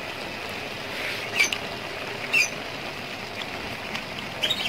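Cabbage, green bean and sausage stir-fry simmering in a wok with a steady hiss, while three short high chirps sound about a second and a half in, near the middle, and near the end.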